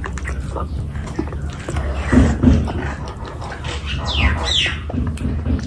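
Close-miked eating sounds of a person chewing curry and rice: wet chewing and lip smacks in a slow rhythm, with two short high falling squeaks about four seconds in as the next handful goes into the mouth.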